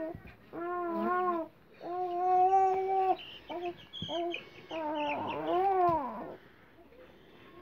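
An infant vocalizing in a run of drawn-out, whiny cries: two long level wails, two short yelps, then a longer one that rises and falls in pitch.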